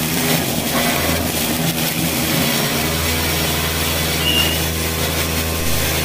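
Homemade grass cutter built from a 680-watt AC angle grinder, running steadily as it cuts through grass and weeds: a constant low motor hum under a dense hiss.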